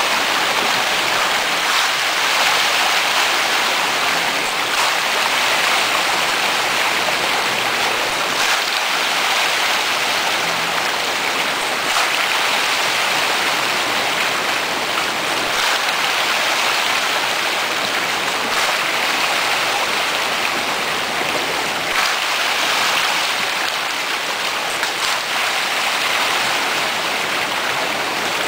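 A shoal of rainbow trout thrashing at the water surface in a feeding frenzy: a dense, continuous hiss of splashing like heavy rain, with a sharper splash standing out every few seconds.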